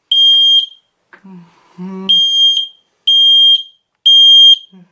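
Domestic smoke alarm sounding on its test button: loud, high-pitched half-second beeps in the temporal-three pattern. One beep ends a group at the start, then comes a pause, then three more beeps about a second apart. A voice says a few words in the pause.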